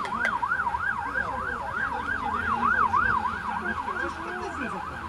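Emergency vehicle siren on its fast yelp setting, the pitch sweeping up and down about three times a second.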